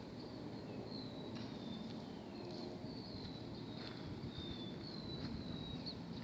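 A bird calling over and over in short, high falling whistles, over a steady low rumble of outdoor background noise.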